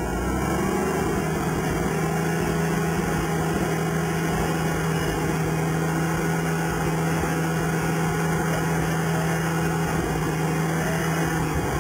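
A vehicle engine running at a steady speed while a winch line pulls an overturned 4x4 upright, with a steady low hum that stops near the end.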